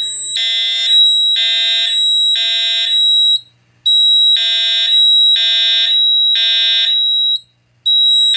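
Edwards Integrity 757-7AT horn-strobe sounding the temporal code-3 fire evacuation pattern on its low-volume setting: groups of three short, harsh electronic blasts with a short pause between groups. It signals a Simplex 4010 fire alarm panel in alarm after a manual pull station was tripped.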